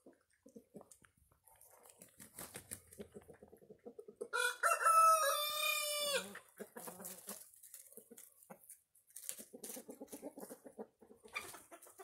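A rooster crows once, about two seconds long, starting about four seconds in. Soft chicken clucking and scratching in the straw sound quieter around it.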